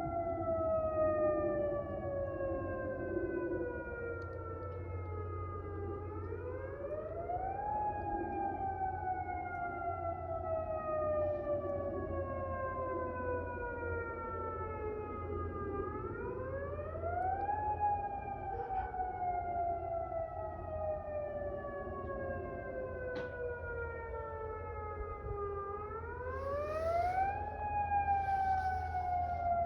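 Outdoor tornado warning siren sounding a test: its pitch climbs quickly, then slides slowly down over about eight seconds, three times over.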